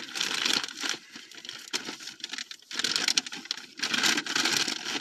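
Packaging crinkling and rustling as it is handled and opened by hand, in several bursts of about a second each with short pauses between them.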